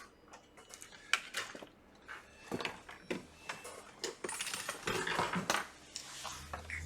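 Scattered small clicks and taps of handling on a repair workbench, with a brief stretch of rustling clatter about four seconds in.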